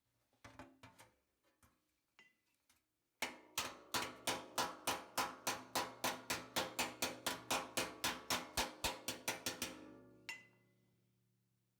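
Hammer blows on sheet steel in a fast, even series, about four or five a second for some six seconds, each blow ringing briefly before the hammering stops. A few light taps come before it.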